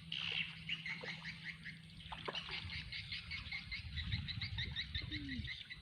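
Birds chirping rapidly and evenly, short high notes about five a second, over a low steady rumble.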